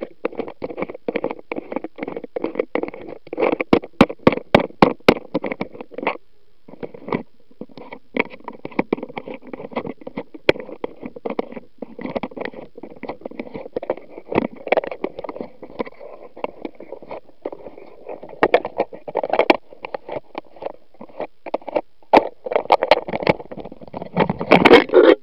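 Close-up irregular clicking and rattling, with a run of sharper knocks a few seconds in and a louder cluster of knocks and scrapes near the end.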